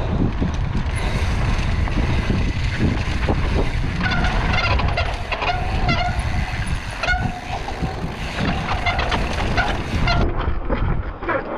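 Mountain bike riding down a dirt trail, heard from the rider's camera: a steady rumble of wind on the microphone and tyres on dirt. Several short high squeals come around the middle, like disc brakes squealing under braking.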